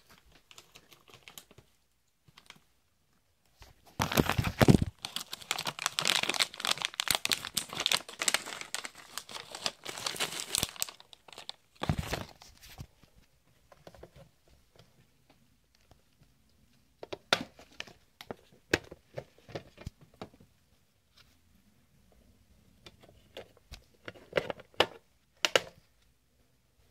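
A crinkly plastic snack bag being handled: dense crackling and crinkling for several seconds about four seconds in, a sharp rustle soon after, then scattered soft rustles and clicks.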